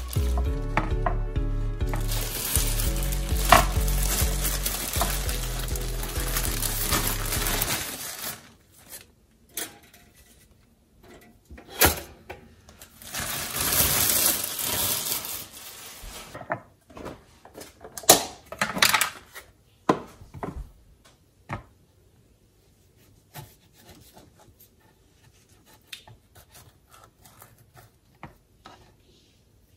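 Background music for the first eight seconds or so, then kitchen handling sounds: a plastic bread bag rustling, knocks and clicks on a wooden cutting board and worktop, and near the end faint taps of a knife cutting an avocado.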